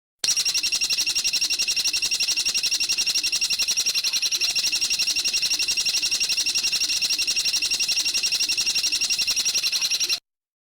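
Recorded songbird call for bird training: a steady, rapid string of high, sharp notes, about eight a second, that starts and cuts off abruptly.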